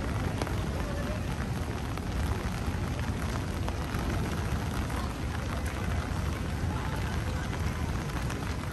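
Steady rain falling on wet pavement, over a continuous low rumble.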